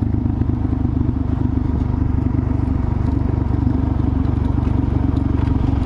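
Suzuki DRZ400 SM's single-cylinder four-stroke engine running at a steady, even pace while riding, heard close up from the bike.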